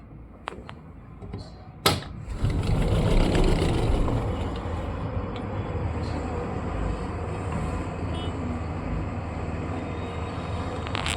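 A sharp click about two seconds in, then an excavator's engine runs steadily with a low rumble, loudest soon after it comes in.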